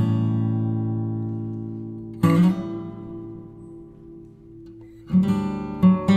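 Music: an acoustic guitar strums chords that ring out and slowly fade, with new strums about two seconds in and a quicker run of strums near the end.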